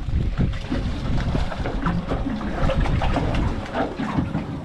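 Wind buffeting the microphone and water sloshing against a small boat's hull, with scattered small clicks and knocks.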